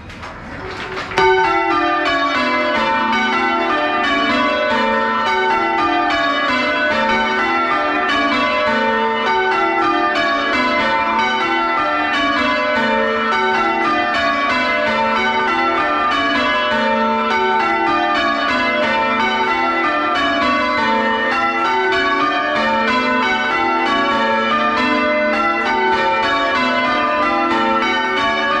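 The front six church bells of a larger ring, rung full-circle in English change-ringing style, heard loud and close from inside the bell chamber. The bells strike one after another in a continuous, evenly spaced pattern of runs that step down in pitch. The sound swells up over the first second.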